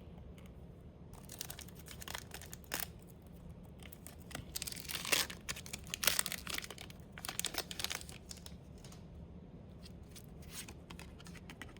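A Pokémon booster pack's foil wrapper being torn open and crinkled by hand. It comes as a string of short rips and crackles, densest and loudest about halfway through.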